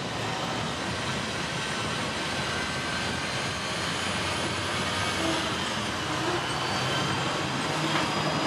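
Hong Kong double-decker electric tram running along its street tracks, heard from inside on the upper deck: a steady, continuous rumble of wheels on rail and motor, with a few faint steady high tones.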